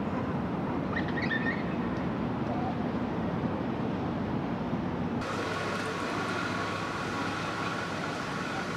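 Outdoor town ambience: a steady low rumble with a brief high chirp about a second in. About five seconds in it changes abruptly to a steadier hum with a few held tones.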